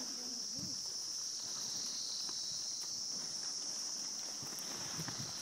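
Insects droning in the surrounding vegetation: one steady, unbroken high-pitched buzz.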